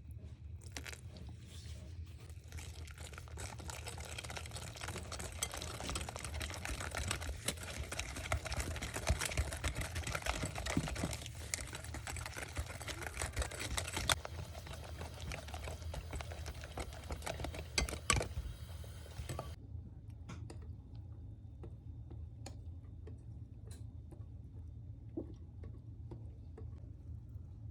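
A spoon stirring cake batter in a mug, with fast scraping and clinking for about eighteen seconds that stops abruptly, followed by a few light scattered knocks over a low steady hum.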